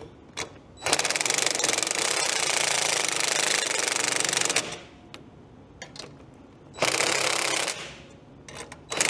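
DeWalt cordless impact driver hammering in two bursts, a long one of about three and a half seconds and then a short one of about a second, turning the bolts of a coil-spring compressor to compress a motorcycle rear shock spring further.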